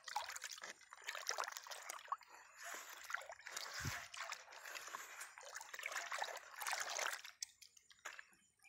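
A hand stirring and swishing liquid in a wide tub, with irregular sloshing and trickling water. It dies down briefly near the end.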